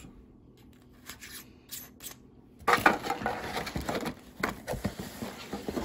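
Packaging being handled and rummaged through: rustling of cardboard and packing material with small clicks and knocks, starting about two and a half seconds in after a few faint clicks.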